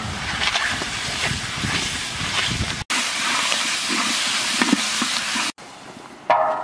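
A steady hiss, broken by an abrupt cut about halfway through and dropping to a much quieter hiss near the end, where a short pitched sound is heard.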